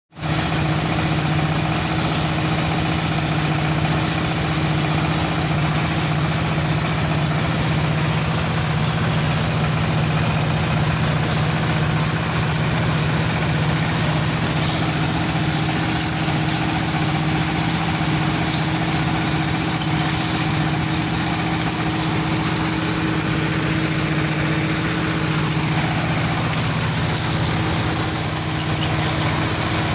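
Electric dowel (rounding) machine running steadily while making broom handles: a constant low motor hum with a steady hiss over it. Near the end, one tone in the hum slides down in pitch.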